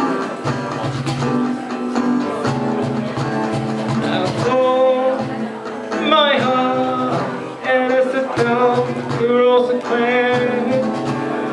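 Acoustic guitar playing a pop song accompaniment, joined by a singer's voice about four seconds in.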